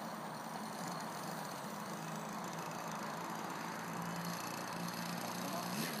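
Radio-controlled scale model Demoiselle aircraft's motor droning steadily in flight, its pitch wavering slightly near the end, over a steady hiss.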